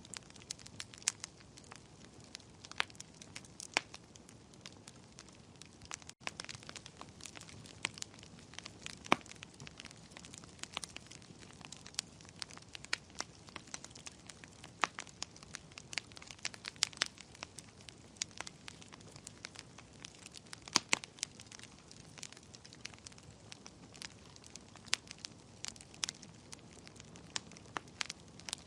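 Wood fire burning in a fireplace: irregular sharp crackles and pops over a soft, steady low hiss.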